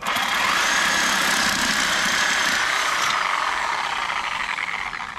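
Reciprocating saw running, its blade cutting the head off a gar. The whine starts abruptly, runs steadily for about three seconds, then fades away as the cut finishes.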